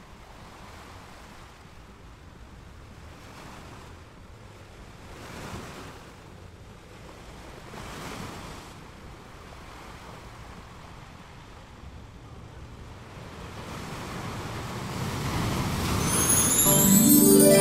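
A steady rushing noise, like surf, that swells in whooshes about five and a half and eight seconds in and then builds louder over the last few seconds. Music with bell-like mallet percussion comes in near the end.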